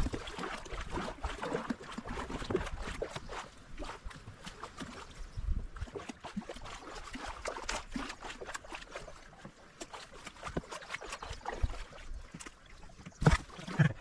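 Canoe paddles dipping and splashing in the water, with irregular drips and small splashes, and a louder splash or knock near the end.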